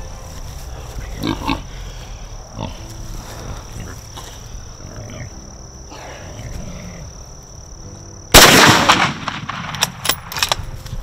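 A single loud rifle shot from a scoped 6.5 Creedmoor hunting rifle about eight seconds in, ringing on for about a second, followed by a few sharp clicks.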